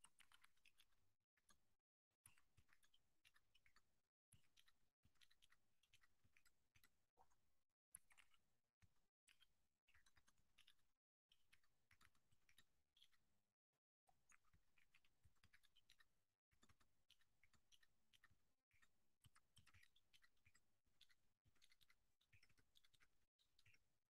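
Faint typing on a computer keyboard: quick runs of keystroke clicks broken by short pauses every couple of seconds, with one sharper key strike about eight seconds in.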